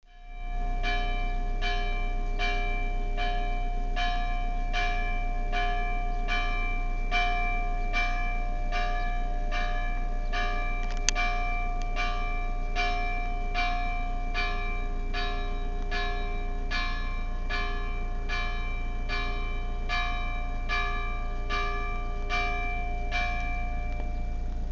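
Church tower bell rung at an even pace, a little over one stroke a second, each stroke ringing on into the next: the call to Mass. The strokes stop near the end.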